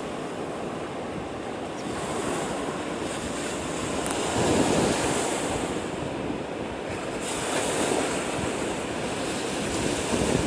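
Storm surf breaking and washing up a sandy beach in a continuous rush, with wind blowing. It swells louder as waves break, about halfway through and again near the end.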